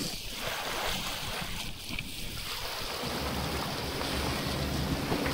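Rushing, churning water of a sailing yacht's wake alongside the hull, with wind on the microphone. About three seconds in, a low steady hum joins it.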